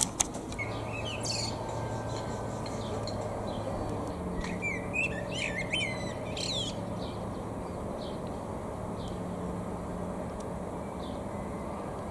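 Common blackbird singing: a phrase of gliding whistles, running higher towards its end, about halfway through, with faint short chirps before and after.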